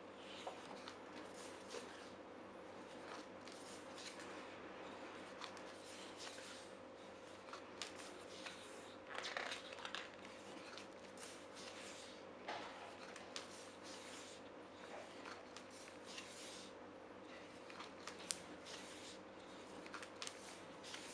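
Quiet rustling and swishing of glossy photobook pages turned by hand, with louder page turns about nine and twelve seconds in, over a faint steady hum.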